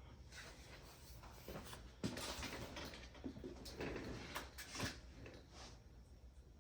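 Soft handling noises: a few light knocks and clicks mixed with brief rustling. The sharpest knock comes about two seconds in, and more follow around four to five seconds.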